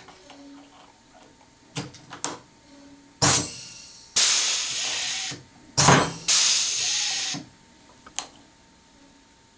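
Pneumatic air riveter setting rivets: a few light clicks as the tool is positioned, then two sharp pops, each followed by about a second of hissing air.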